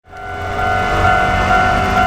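Japanese level-crossing warning bell ringing: a two-tone electronic chime repeating about twice a second, over a low rumble. It fades in over the first half second.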